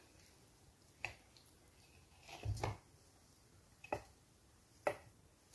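Kitchen utensils knocking against a steel pot: a few short sharp clicks about a second apart, with a duller, heavier knock near the middle.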